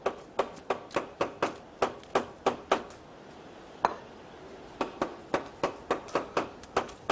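A kitchen knife chopping quickly on a cutting board, about four strokes a second. It comes in two runs, with a single stroke in the pause between them.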